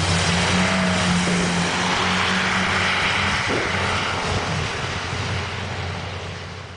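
Car engine running with a steady note over the hiss of tyres on a wet road, fading away as the car drives off.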